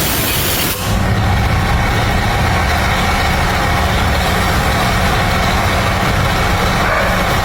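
A hiss that cuts off abruptly about a second in, followed by a motor or engine running steadily with a low, even hum.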